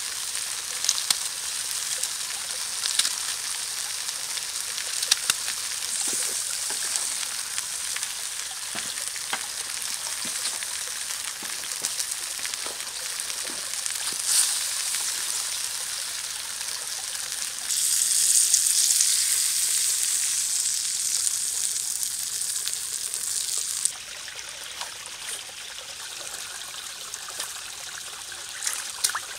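Vegetables sizzling in a metal pot over a wood fire, with scattered clicks and scrapes of a wooden spatula stirring them. The sizzle grows louder past the middle for several seconds, then drops to a quieter hiss near the end.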